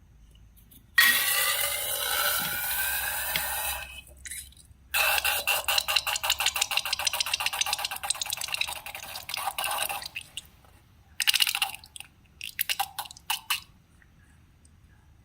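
Slime and balloon handling sounds: a squeaky rising squeal about a second in that lasts about three seconds, then a long run of rapid wet crackling and popping, and a few short squelches near the end.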